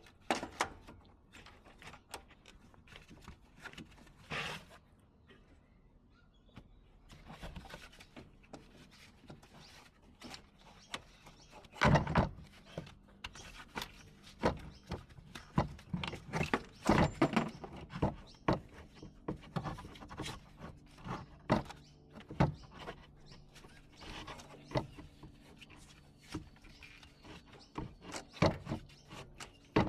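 Irregular knocks, clinks and clunks of hand tools and metal parts being handled, loudest twice, about twelve and seventeen seconds in.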